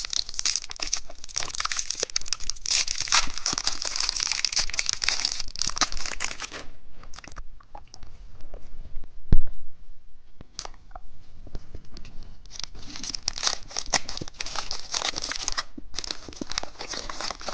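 Plastic candy wrapper being torn open and crinkled, in long stretches of dense crackling with a quieter pause in the middle. One sharp thump about nine seconds in.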